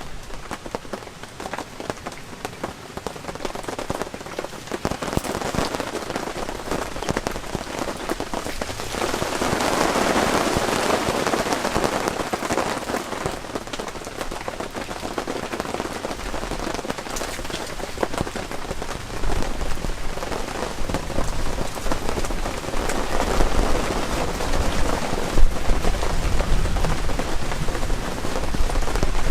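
Heavy rain falling on the all-cotton canvas of a tent-Mark Designs 炎幕DX tent, a dense patter of drops. It swells heaviest about ten seconds in, and a low rumble joins it in the last third.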